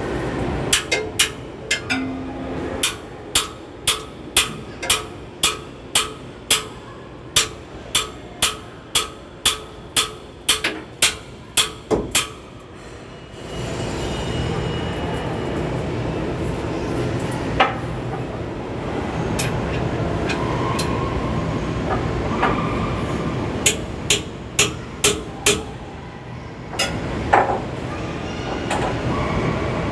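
Metal being struck with a hammer: a quick regular run of ringing blows, about two a second, for some twelve seconds. After that a steady rumble takes over, with a few more single blows now and then.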